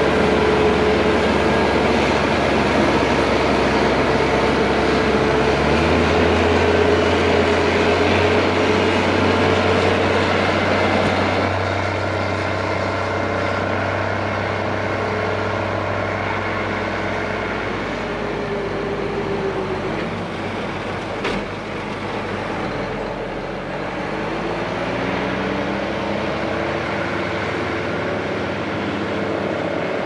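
Large diesel tractor engines working as they push and pack corn silage, their pitch rising and falling as they load up and ease off.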